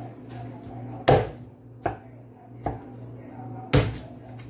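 Chinese cleaver chopping through a boiled whole chicken on a thick wooden chopping board: two heavy chops, about a second in and near the end, with two lighter knocks between them.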